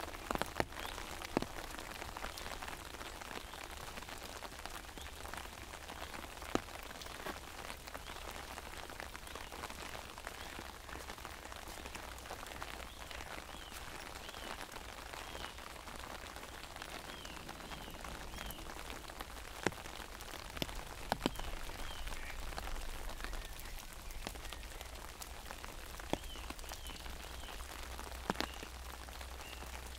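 Steady rain pattering on an umbrella, with scattered louder single drops tapping on the canopy.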